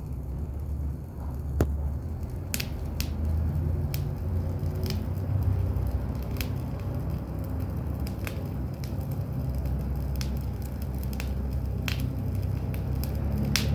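Campfire wood crackling, with scattered sharp pops at irregular intervals over a steady low rumble.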